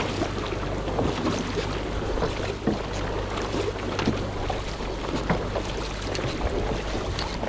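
Dragon boat crew paddling together: paddle blades dipping and pulling through the water with repeated splashes and rushing water, over a steady low rumble of wind on the microphone.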